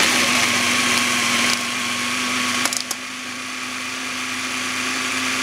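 Electric mini chopper running continuously, its blade puréeing pitted olives and capers with oil into a paste. A steady motor hum under the chopping noise, starting abruptly and a little quieter from about halfway.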